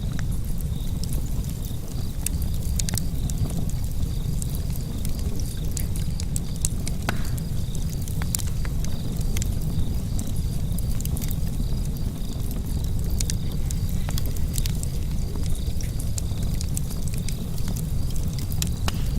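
Wood fire burning in a fireplace, crackling: frequent irregular sharp pops and snaps over a steady low rumble of the flames.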